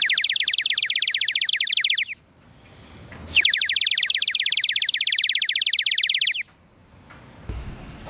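Plastic water-filled bird whistle blown in two long warbling trills, the second longer than the first. The water half-filling its belly makes the high whistle flutter rapidly.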